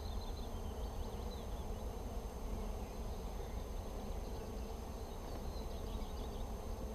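Honeybees buzzing steadily around an opened hive.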